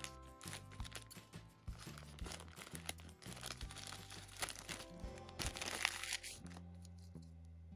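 Plastic bag crinkling and rustling as it is snipped open with scissors and worked off the cable inside, loudest about five to six seconds in and stopping about a second before the end, over background music.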